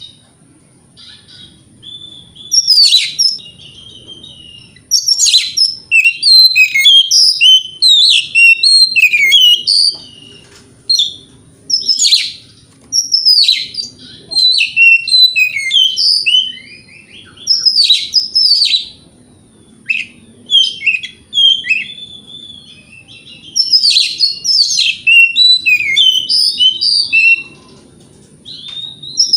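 Oriental magpie-robin singing a loud, varied song of rapid whistles, chirps and trills, in bursts of a few seconds separated by short pauses.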